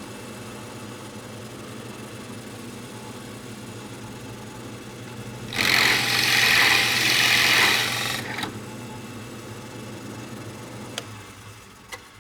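Hammer drill running steadily. For about three seconds midway it bites into material and gets much louder and harsher, then runs free again, with a couple of sharp clicks near the end.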